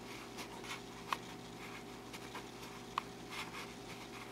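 Quiet room tone with a steady low hum, and faint rustles and clicks of the camera being handled, with two sharper ticks about a second in and about three seconds in.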